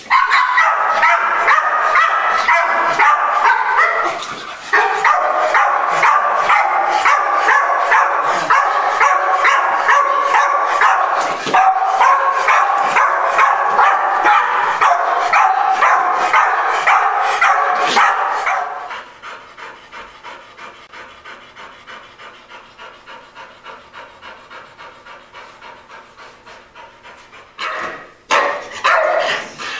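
Pit bull barking and whining frantically in a near-continuous high-pitched stream, the outburst of a dog that is reactive to other dogs. About two-thirds of the way through it drops to steady panting, about two breaths a second, and then gives a few barks near the end.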